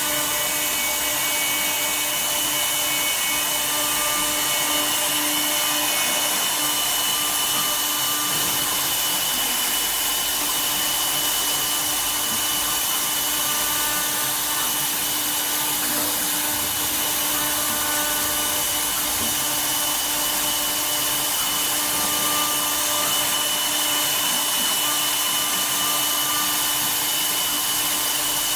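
CNC router spindle cutting wood: a steady whine over a constant high hiss of the bit in the material, running evenly without a break.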